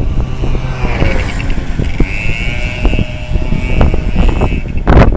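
Strong wind buffeting the microphone, with a motor vehicle's engine passing from about a second in until near the end. A harder gust hits just before the end.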